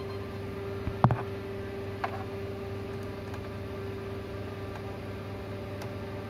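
Steady hum and hiss from a powered-up power amplifier on the repair bench, with a sharp click about a second in and a fainter tick about a second later.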